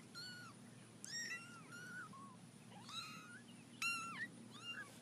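Kitten mewing: a series of about six short, high-pitched mews, each rising then falling, heard faintly.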